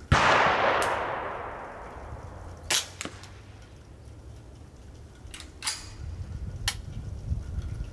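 A .22 LR rimfire rifle shot fired from the bench, its report fading over about two seconds. Several shorter, sharper cracks follow, the loudest about two and a half seconds in.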